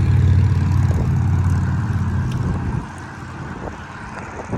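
An engine running with a low, steady rumble that drops off sharply a little under three seconds in.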